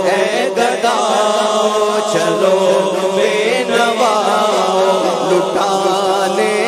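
A man singing an Urdu naat into a microphone in drawn-out, wavering notes, without instruments, over a steady low drone.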